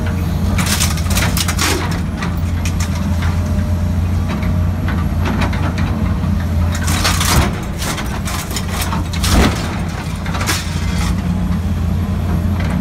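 John Deere 330 excavator's diesel engine running steadily, heard from inside the cab, with bursts of clanking and crunching as the stump shear handles demolition debris, loudest about seven and nine seconds in.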